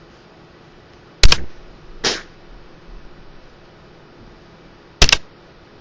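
Two sharp clicks about four seconds apart, the first the loudest, with a short scrape-like noise just under a second after the first one.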